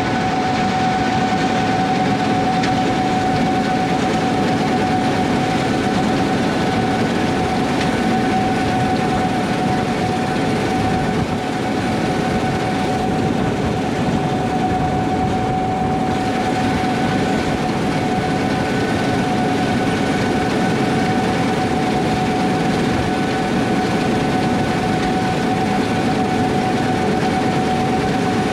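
Heavy harvest machinery running steadily: a continuous loud engine and machine drone with a constant high whine that never changes.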